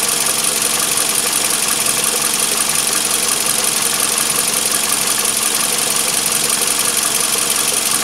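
Steady machine running noise: a constant hum with a high hiss, unchanging throughout.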